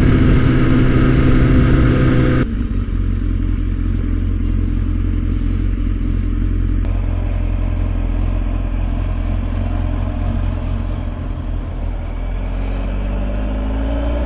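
Kawasaki ZX-10R's inline-four engine running at a steady speed under way. About two and a half seconds in, the sound changes abruptly to a low rumble with the engine much fainter. Near the end the engine rises in pitch as the bike accelerates.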